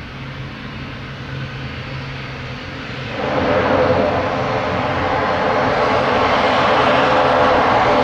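ATR 72-600's twin Pratt & Whitney PW127 turboprop engines and propellers running as the aircraft taxis on the runway after landing. About three seconds in the engine and propeller sound rises sharply and stays loud.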